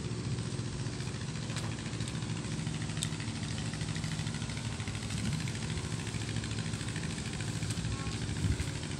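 An engine running steadily, a low drone that holds the same pitch and level throughout.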